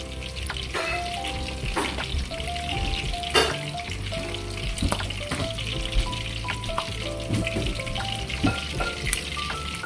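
Rolled pork pieces frying in oil: a steady sizzle with scattered sharp pops and crackles.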